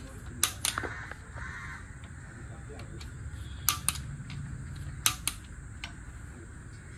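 Clicker torque wrench clicking in three quick pairs as it reaches its set torque, about 20 lb-ft, on the connecting rod cap bolts of a Hyundai Xcent engine.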